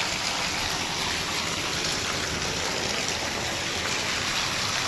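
Heavy monsoon rain pouring down in a steady, even hiss.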